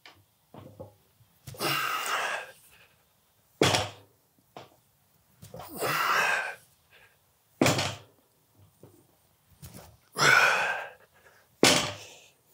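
A loaded barbell being deadlifted: three times, about four seconds apart, the plates knock down onto the matted floor as the bar comes to a dead stop, and each knock follows a loud, hissing breath from the lifter straining through the rep.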